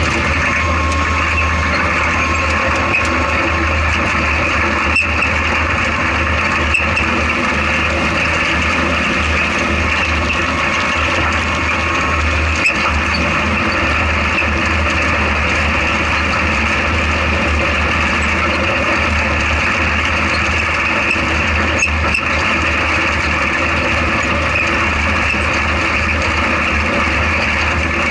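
Off-road race vehicle's engine and drivetrain running under load, heard from inside the cab as a steady loud drone, with a few sharp knocks about 5, 7, 12 and 22 seconds in.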